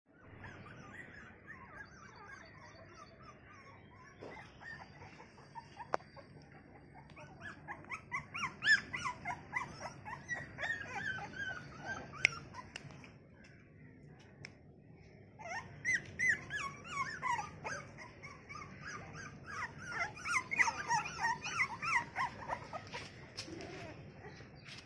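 A litter of American bully puppies squealing and whimpering as they play-fight, many short high squeaks in quick clusters. The squeaks come in two busy spells, one in the middle and a longer one toward the end, with sparser whining in between.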